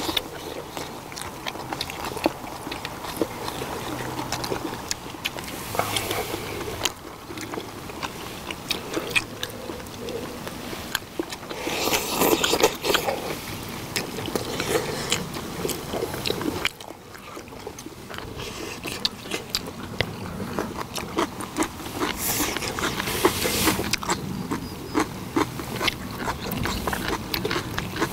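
Several people chewing and eating stir-fried pork with kimchi, with mouth sounds and metal chopsticks clicking and scraping on bowls and the cast-iron griddle.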